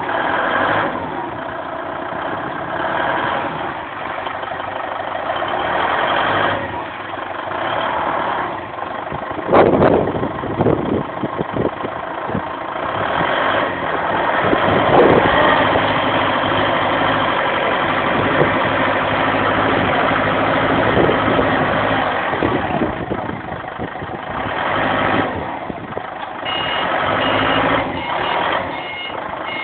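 ACE 3-ton forklift's engine running as it works with a shovel attachment, with a burst of clattering knocks about a third of the way in. Near the end its reversing alarm starts beeping in short repeated pips.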